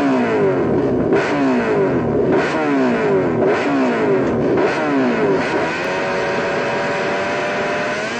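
Honda RC211V's 990 cc V5 racing engine revved in repeated short blips, each one falling back, then held at a steady high note from about five and a half seconds in, ready for the start.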